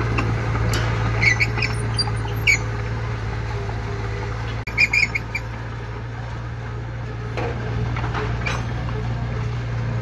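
Small Komatsu crawler bulldozer's diesel engine running steadily as it travels, with short high squeaks from the steel tracks a few times, the loudest about five seconds in.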